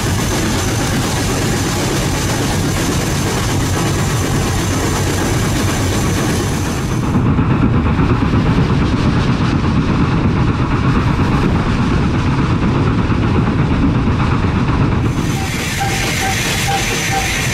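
Hunslet 0-6-0 saddle-tank steam locomotive on the move, heard from the footplate: a steady rumble of wheels and running gear on the rails, with steam hiss. For several seconds in the middle the sound turns duller and heavier, then clears again.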